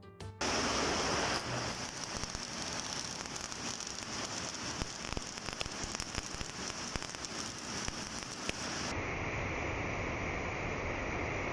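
Stick-welding arc crackling and sizzling steadily as a high-titanium-oxide FujiWeld electrode burns. About nine seconds in, the highest hiss drops away.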